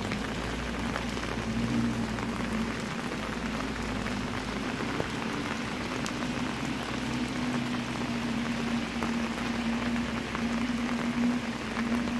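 Steady rain falling on a flooded paved street, with a low steady hum underneath.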